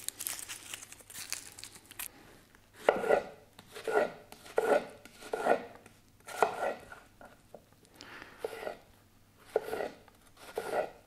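Dry onion skin crackling as it is peeled off with a knife, then a kitchen knife chopping the onion on a wooden cutting board in uneven strokes, roughly one or two a second, from about three seconds in.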